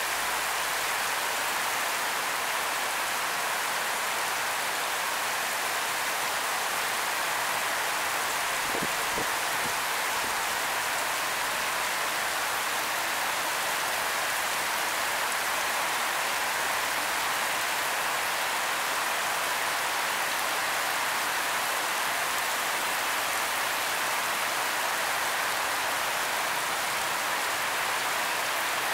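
Torrential rain falling on the street and pavement: a dense, steady hiss of downpour.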